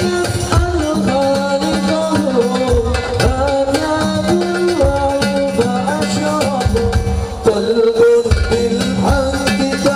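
Sholawat, Islamic devotional singing, with a hadrah ensemble of hand drums. A voice sings a long, ornamented melody over a steady rhythm of struck drums.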